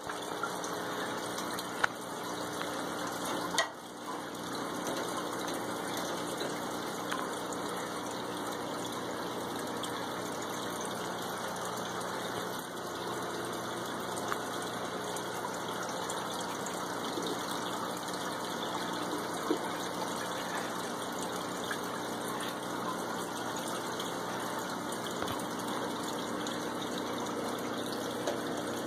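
Aquarium filter pump running, with a steady rush of moving water over a faint constant motor hum. There are a couple of brief knocks in the first four seconds.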